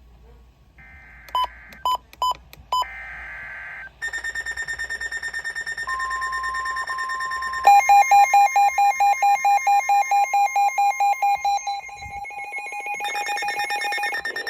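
NOAA weather radio receivers sounding an emergency alert. Short screechy data bursts of the alert header come first, with four short beeps between them. From about four seconds in, several radios' alarms beep rapidly and overlap over a steady warning tone, getting louder about eight seconds in.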